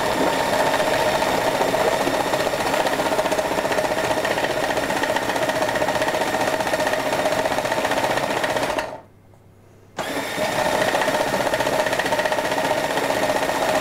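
Braun Multiquick 5 food processor motor running steadily as it blends a thick pumpkin and sour-cream pie filling. It cuts out about nine seconds in and starts again roughly a second later.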